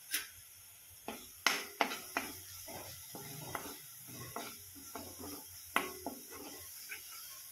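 Spatula stirring and scraping thick, oily masala paste around a hot non-stick kadhai in quick irregular strokes, mixing in the just-added chilli powder and turmeric, over a light sizzle of the frying paste.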